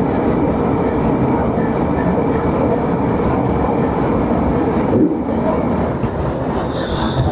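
Gas brazing torch flame running with a steady rushing noise while it heats a thick iron refrigeration tube joint, which needs more heat than copper. The noise dips briefly about five seconds in.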